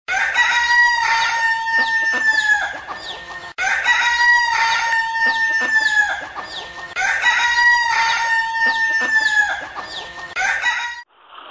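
A rooster crowing over clucking hens, the same few-second recording played three times in a row. It cuts off about eleven seconds in, replaced by a steady hiss.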